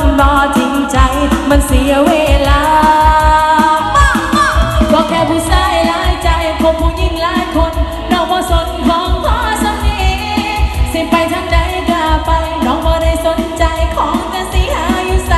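A woman singing a Thai song into a handheld microphone over loud amplified music with a steady thumping beat, played through a stage PA.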